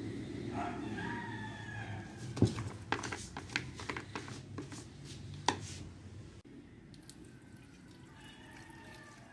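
Hard plastic clicks and knocks as the fuel cap of a DeWalt DW5200 gasoline chainsaw is handled and unscrewed, the sharpest about two and a half and five and a half seconds in, then fuel mix trickling faintly into the tank. A short pitched call, like a pet's cry, sounds near the start.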